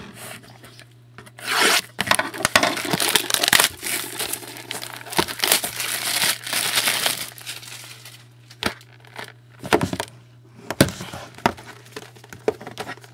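Plastic wrap being torn and crinkled off a sealed trading-card box, followed by a few sharp clicks and knocks from handling the box. A low steady hum runs underneath.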